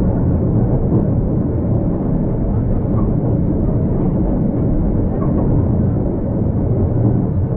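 Old tram running along its line: a steady low rumble with no distinct knocks or tones.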